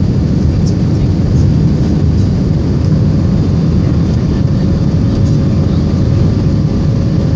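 Steady cabin noise inside an Airbus A321-200 climbing out after takeoff: the jet engines and the rush of air over the fuselage make a dense, even rumble weighted to the low end. A faint steady hum sits above it.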